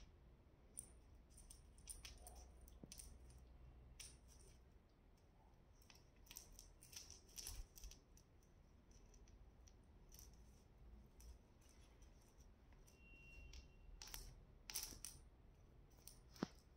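Faint scattered clicks and light clinking of a bead necklace and its pendant knocked about on a marble floor by playing kittens, the clearest few clinks about two seconds from the end.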